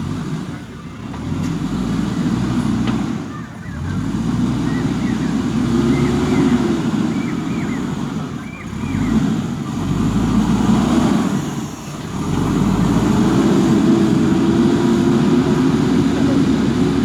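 Backhoe loader's diesel engine working under load, its sound rising and falling with several brief dips, then holding steady and loud for the last five seconds.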